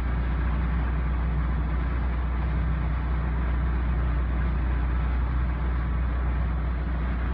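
Off-road vehicle engine running steadily, a constant low rumble that neither revs up nor dies away.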